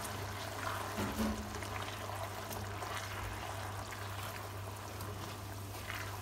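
Meatballs in a thick sauce simmering and sizzling in a frying pan with a steady hiss, while a silicone spatula stirs them, giving light wet scrapes and small clicks.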